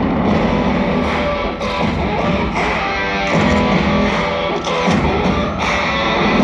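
Loud rock music with electric guitar, played as the soundtrack of a fireworks show.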